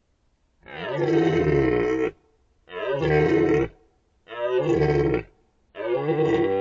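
Red deer stag roaring in the rut: four deep roars in quick succession, each about a second long, the first starting about half a second in.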